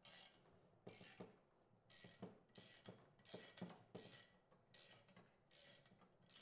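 Quiet, irregular metallic clinks and taps, a dozen or so, some with a brief ring: a ratchet and Allen-head bit working the brake-shield screws on a Mercedes W124 steel front steering knuckle, with the steel parts being handled.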